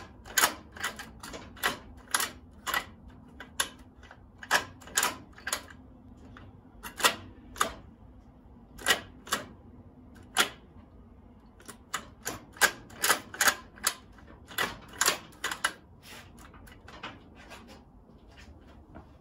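A run of sharp, irregular clicks, sometimes in quick pairs, about two a second, growing fainter and stopping shortly before the end.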